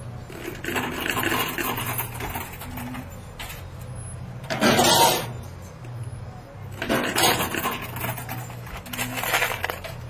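Peso coins clattering in a coin pusher arcade machine, in three bursts about two seconds apart, the first near the middle and the loudest. A steady low hum runs underneath.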